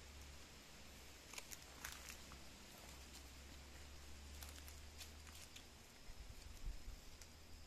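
Near silence: faint outdoor background hiss with a few soft scattered clicks.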